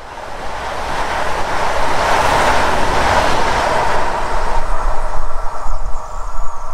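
PKP Intercity PESA Dart electric multiple unit passing at speed: a rush of wheel-on-rail noise that peaks about two to three seconds in, then thins out as the train pulls away. After that a faint steady whine remains, with a low, uneven rumble that grows near the end.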